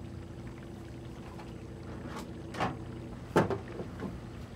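A steady low hum with four soft knocks and clatters from objects being handled, the loudest about three and a half seconds in.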